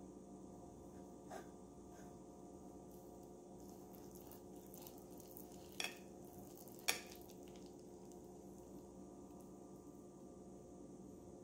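Steel knife and fork cutting into a sticky-rice dumpling on a ceramic plate: a few short clinks of cutlery on the plate, the two sharpest about six and seven seconds in, over a faint steady hum.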